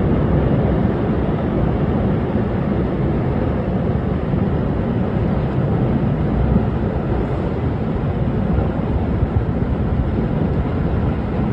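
Steady, loud rushing roar of strong storm wind, heaviest in the low end.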